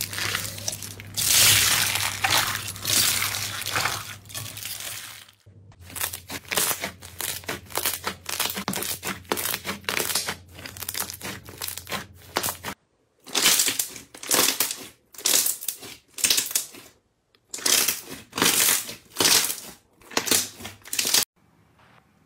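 Hands squeezing and poking foam-bead slime (floam), with dense crunching and crackling, then other slimes crackling and squishing under the fingers. Later come loud separate squishes about once a second, and near the end it goes quiet.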